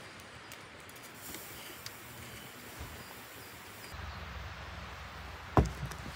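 Steady outdoor background hiss with a few faint clicks, and one sharp knock about five and a half seconds in.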